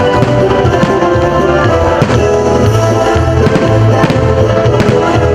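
Background music with held chords over a steady pulsing bass beat.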